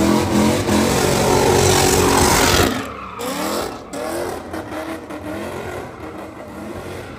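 A car's engine held at high revs with tyre squeal as it spins donuts. About two and a half seconds in the sound drops abruptly, and after that the car is quieter, with short rising revs.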